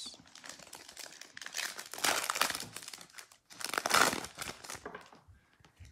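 Silver foil wrapper of a 2020 Panini Select football card pack being torn open and crinkled by hand, crackling loudest about two seconds in and again about four seconds in.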